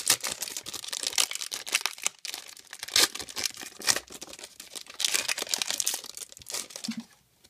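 Foil trading-card pack wrapper crinkling and tearing as it is ripped open by hand: a dense run of sharp crackles that stops near the end.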